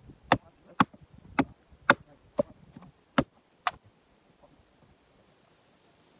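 A splitting maul striking a jarrah round: seven sharp, loud blows about half a second apart, stopping about four seconds in.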